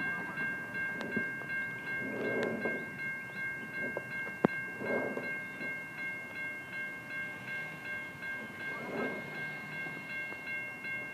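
Railroad grade-crossing warning bell ringing steadily with a fast pulsing beat as a train approaches. Cars pass over the crossing a few times, and there is one sharp click about four and a half seconds in.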